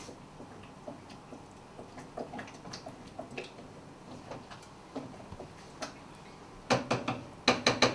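Wooden spoon stirring thick risotto in a copper saucepan: soft scraping with light scattered clicks, then a quick run of louder knocks near the end.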